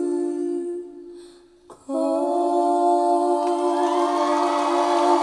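Recorded song played back through ScanSonic MB-2.5 floor-standing speakers: long held notes that sound sung or hummed. One note fades away in the first second and a half, a small tick follows, and a new sustained note comes in about two seconds in and holds, swelling.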